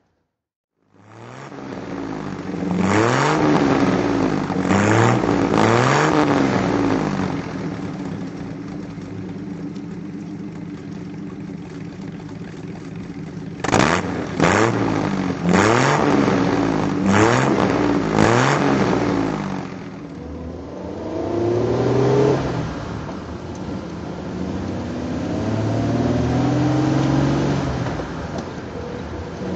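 Bentley 4¼ Litre six-cylinder engine idling and being blipped on the throttle: three revs in the first seconds, a quick run of about five sharp revs in the middle, then a couple of gentler revs, settling back to a steady idle between them.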